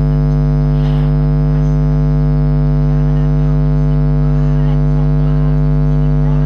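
Loud, steady electrical hum with a stack of even overtones, unchanging in level, with a faint voice barely showing beneath it.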